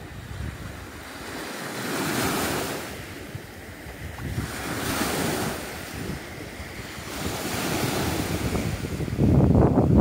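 Small Baltic Sea waves washing onto the shore, swelling and fading about every three seconds. Near the end, wind buffeting the microphone becomes the loudest sound.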